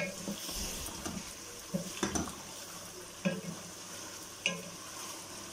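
Chicken pieces frying with ginger-garlic paste in a pot, sizzling steadily, while a wooden spatula stirs them and knocks against the pot several times, about once every second or so.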